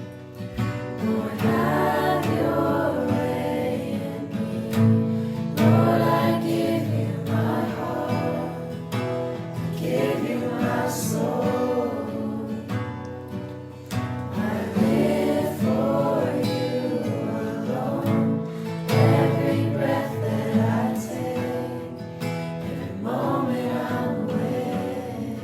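A group of voices singing a worship song over steady instrumental accompaniment, in phrases of a few seconds each.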